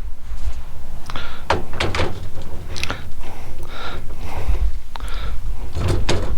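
Several sharp knocks and clunks, some in quick pairs, over a steady low rumble.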